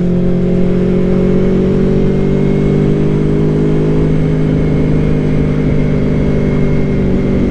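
Aprilia Tuono V4 motorcycle engine running steadily under way, heard from the rider's helmet, its pitch easing slightly through the middle and picking up a little near the end.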